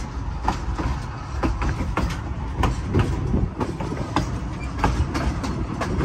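Narrow-gauge passenger car rolling along the track: a steady low rumble of wheels on rail, with frequent irregular clicks and knocks from the wheels and car.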